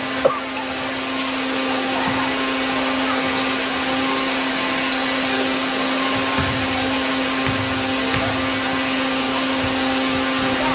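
A steady machine-like whir with a constant low hum, and one sharp knock just after the start.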